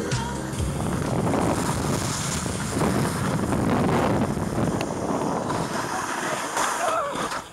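Rushing wind noise on the camera microphone while riding, mixed with a snowboard sliding and scraping over slushy snow.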